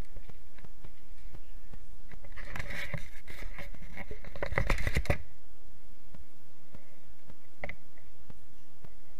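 Knocks, clicks and scraping of things being handled close by on a wooden floor, thickest between about two and five seconds in, then only a few faint ticks.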